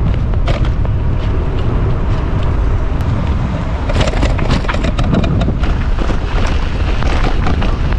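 Wind buffeting the microphone: a loud, steady low rumble broken by crackling gusts.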